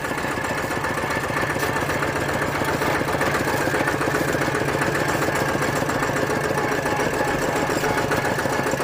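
Single-cylinder diesel engine of an e-taek, a walking-tractor farm cart, running steadily under way with an even, rapid chugging beat.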